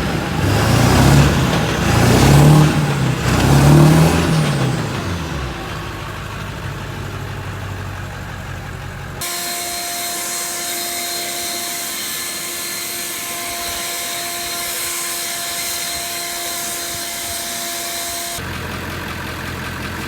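2000 Ford F-350's 7.3 L Powerstroke V8 turbodiesel revved hard about four times, then running steadily. About nine seconds in the sound cuts abruptly to a steady hum with hiss, and it cuts back to engine sound near the end.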